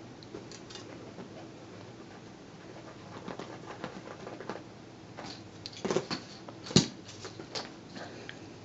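A cat wrestling a feather wand toy on sofa cushions: soft rustling and patting of paws and feathers, with scattered light clicks and one sharper click late on.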